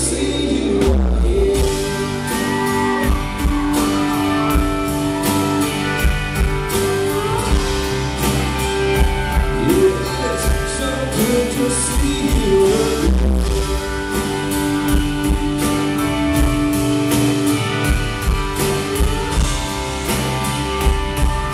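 Live country song with an acoustic guitar strummed in a steady rhythm and some singing.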